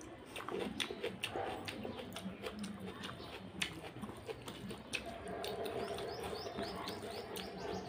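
Close-up wet eating sounds: fingers mixing and squishing rice in curry gravy, with sharp sticky clicks and smacks. From about halfway in, a bird chirps in a quick run of short rising notes.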